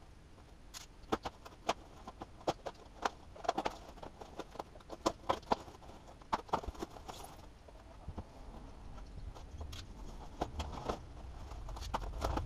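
Foam packing wrap crackling and rustling as it is handled and its tape cut and pulled open, in a run of irregular sharp crackles. Toward the end a fuller, lower rustle builds as the wrap is lifted away from the part.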